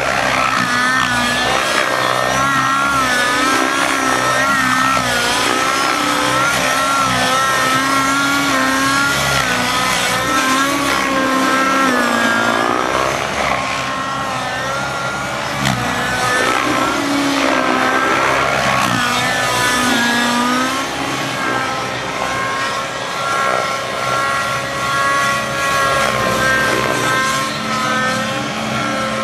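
Raptor 90 nitro RC helicopter in 3D aerobatic flight: its two-stroke glow engine and rotors run continuously, the pitch constantly rising and falling with the manoeuvres, a little steadier near the end.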